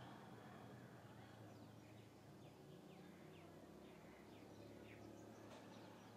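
Near silence with faint bird chirping: a run of short high chirps, about two a second, through the middle, over a faint low steady hum.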